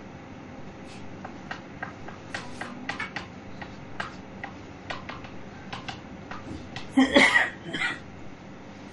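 Chalk tapping and clicking against a blackboard as figures are written, a quick irregular run of sharp ticks, then a louder rough burst of sound about seven seconds in.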